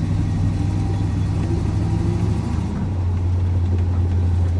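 K20 plow truck's engine running under load as the truck pushes into deep drifted snow, a steady low hum with a faint rising tone. The note shifts a little under three seconds in.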